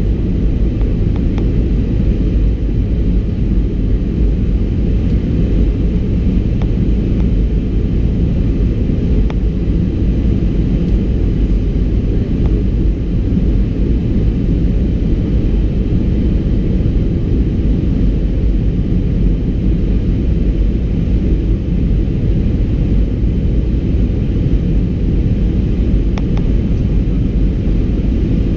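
Steady cabin noise of an Airbus A320-200 in flight: a loud, even low rumble of engines and airflow with a faint hiss above it, unchanging in level.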